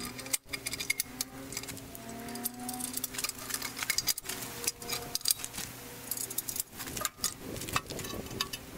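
Irregular metal clinks, clanks and rattles as a steel 3-point quick hitch frame and its hardware are handled and set onto a tractor's three-point hitch arms.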